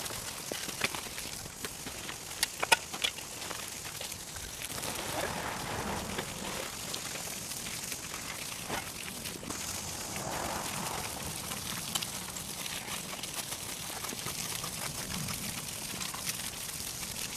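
A shovel working loose soil, with a few sharp scrapes and clinks of the blade in the first three seconds, then a steady hiss with soft crackling.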